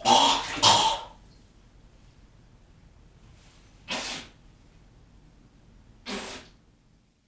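A person vomiting in a small bathroom: two loud retching heaves within the first second, then two shorter, quieter bursts about four and six seconds in.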